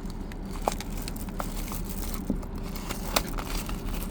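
Toy blind-box packaging being opened and handled: scattered sharp crackles and clicks, about five in four seconds.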